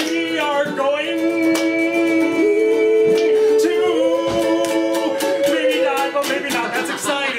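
Singing with long held notes that step up in pitch partway through, over a strummed ukulele.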